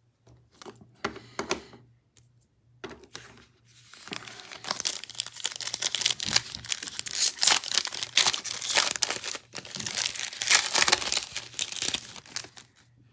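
Crinkling and tearing of a plastic trading-card pack wrapper being opened, starting with a few light crackles and becoming a steady run of crinkling about four seconds in.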